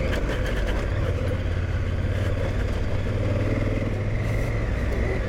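Large twin-cylinder adventure motorcycle running at a steady riding speed on a dirt road, its engine drone steady under a constant rush of road and wind noise.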